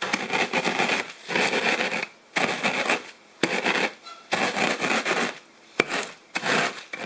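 Cornflakes in a sealed plastic zip-top bag being crushed under a wooden rolling pin, crunchy, in repeated back-and-forth passes of under a second each, with short pauses between them.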